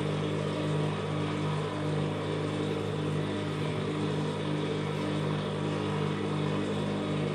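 Industrial sewing machine motor running with a steady hum while fabric is worked under the presser foot.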